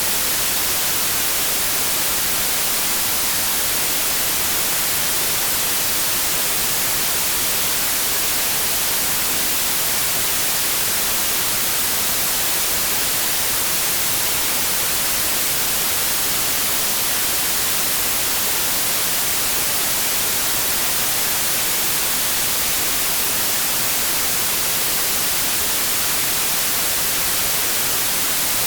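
Steady white noise: an even, unchanging static hiss, strongest in the high frequencies.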